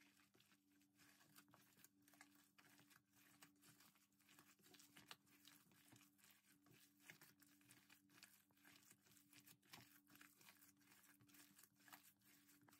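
Near silence, with faint, irregular soft squelches of a bare hand kneading a minced pork cutlet mixture in a bowl.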